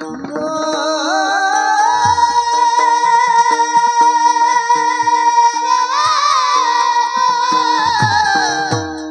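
Kirtan singing: one high voice glides up into a long held note, sustains it for about seven seconds, and lets it fall away near the end, over steady instrumental accompaniment with occasional drum strokes.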